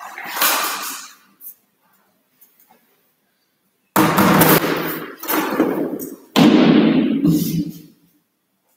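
Plastic aerobic step platforms being set down and stacked: a short knock and rattle at the start, then three loud impacts about a second apart from about four seconds in, each ringing on for about a second.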